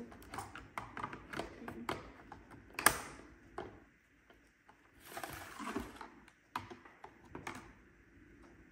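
Plastic clicks, snaps and rattling as the bumper of a Eufy RoboVac 11S robot vacuum is worked loose by hand, with one sharp snap about three seconds in and a scraping rattle a couple of seconds later.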